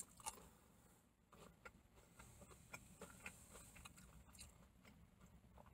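Near silence with faint, scattered mouth clicks of someone chewing a bite of chicken nugget.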